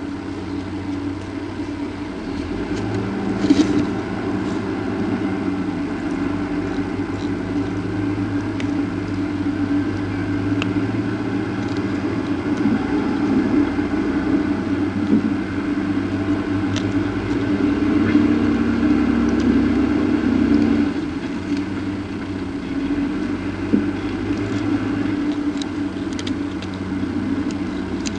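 A steady low drone of several held tones, with a few faint clicks, one about three and a half seconds in.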